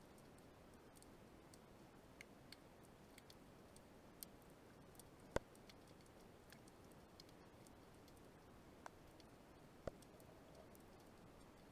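Faint underwater ambience: a low hiss with sparse, sharp clicks. Two louder clicks come about five and ten seconds in.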